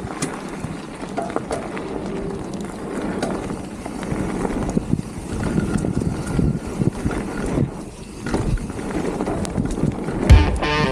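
Wind buffeting the microphone and a mountain bike rattling and clicking as it rolls fast down a bumpy dirt trail. Music comes in with a loud beat near the end.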